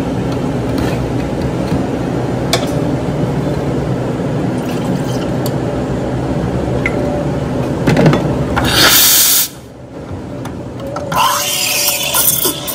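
Espresso machine steam wand hissing: a loud burst of steam about nine seconds in, then from about eleven seconds the wand hissing into a milk pitcher as the milk is steamed, over a steady café machine noise.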